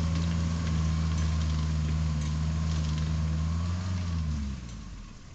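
An engine idling with a steady low hum, then switched off about four and a half seconds in, its pitch sagging as it stops.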